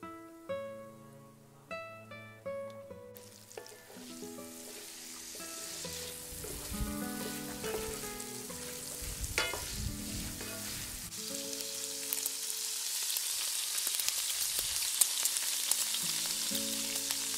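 Diced pork sizzling as it fries in oil in a pan, crisping up. The sizzle starts suddenly about three seconds in and grows steadily louder. A wooden spatula stirs and scrapes the pieces, while acoustic guitar music plays underneath.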